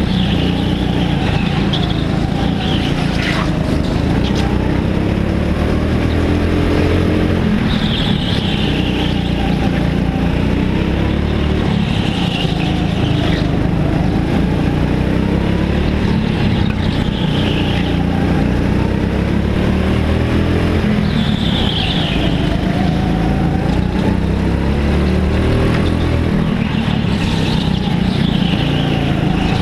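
Racing go-kart engine heard from the driver's seat, its revs climbing and dropping over and over as the kart laps the track, with a short high squeal every few seconds.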